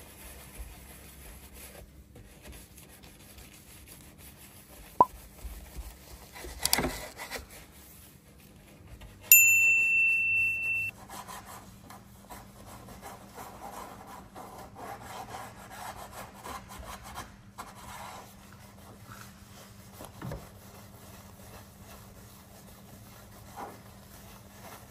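Soft detailing brush scrubbing soapy foam on a car's rear wiper and spoiler edge: a quiet, wet rubbing. About nine seconds in, a loud, high, steady ring sounds for about a second and a half, then cuts off.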